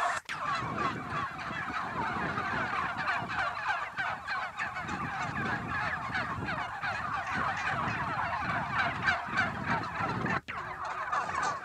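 A large flock of white domestic turkeys calling together: a dense chorus of many short overlapping calls with no pause, cut by two very brief dropouts, one just after the start and one near the end.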